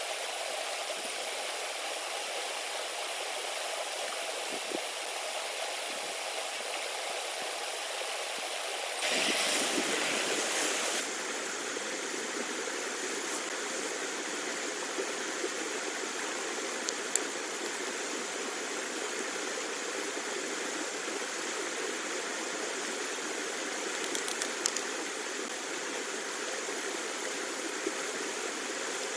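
Steady hiss of falling rain, louder for about two seconds around nine seconds in, with a few faint ticks later on.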